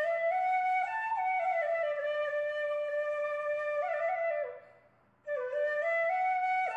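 Background music: a solo flute melody. It fades out about four seconds in and starts again after a short pause.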